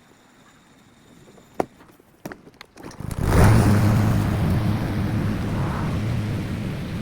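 A few light clicks, then a lawn mower engine starts suddenly about three seconds in and keeps running steadily with a low hum.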